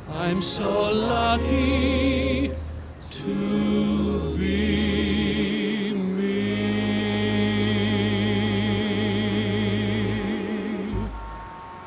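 A man sings the closing phrases of a Broadway showtune over an orchestra, ending on a long held note with vibrato over low sustained bass. The music stops about eleven seconds in, leaving faint street noise.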